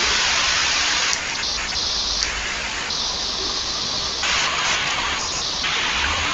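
Steady hiss of background noise, changing in strength in steps every second or so.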